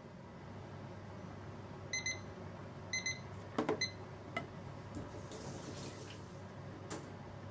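Short electronic beeps from a kitchen timer or appliance, coming in quick pairs about a second apart and then once more, over a steady low hum. Between them, a few clinks of a utensil against a stainless steel bowl, then a short hiss.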